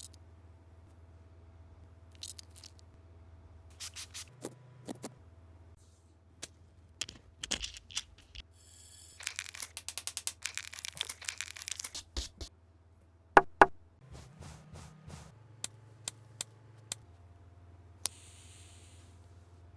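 Handling noises: scattered sharp clicks and taps, a dense stretch of scraping or tearing in the middle, and two loud clicks a little after that, over a low steady hum.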